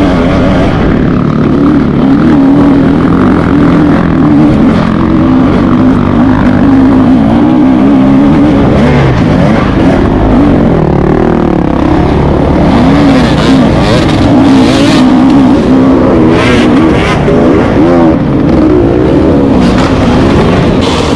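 Enduro dirt bike engine heard from the rider's own bike, running continuously with its pitch rising and falling under throttle over rough trail. In the second half, other dirt bike engines run close by.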